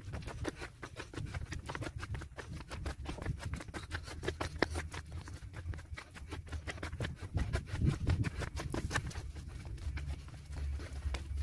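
Quick footsteps on a flagstone path, a rapid, uneven run of scuffs and taps.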